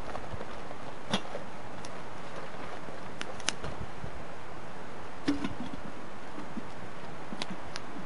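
A handful of sharp clicks and knocks, about six spread over several seconds, over a steady hiss.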